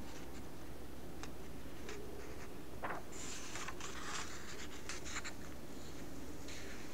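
Pen scratching on paper in short strokes, thickest about halfway through, with scattered small clicks over a steady low hum.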